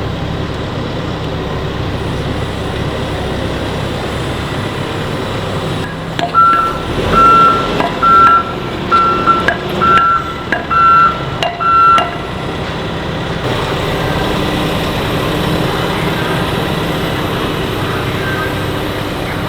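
Heavy construction machinery's diesel engine running steadily, with a backup alarm beeping about eight times over some six seconds in the middle.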